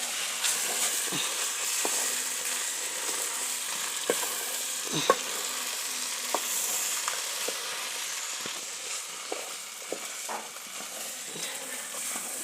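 A bean, carrot and tomato stew sizzling in a cooking pot, with a spoon knocking and scraping against the pot as it is stirred. The sharpest knock comes about five seconds in.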